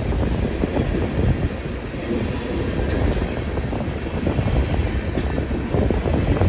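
A train rolling past at trackside: a steady rumble of wheels on rail with irregular knocks and clanks from the cars.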